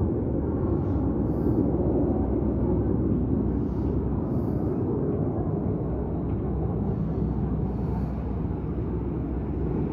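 Distant display jets flying overhead: a steady low rumble of jet engines with no distinct pass-by.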